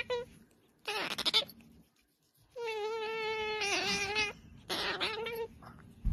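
Pet otter calling: a short squealing call, then one long wavering call lasting about a second and a half, then another shorter call. A brief low thump comes right at the end.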